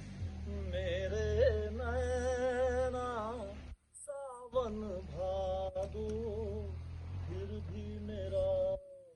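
Singing: a voice holding long notes with vibrato over a steady low hum. It breaks off briefly about four seconds in and stops shortly before the end.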